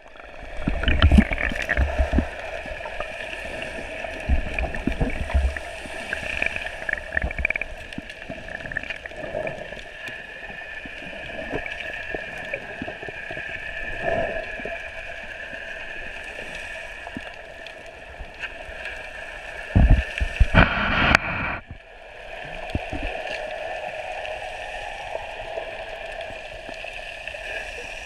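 Muffled underwater sound of the sea heard through an action camera's waterproof housing: a steady hiss and hum, with knocks and splashes in the first few seconds and a louder rush of water at about twenty seconds that cuts off suddenly.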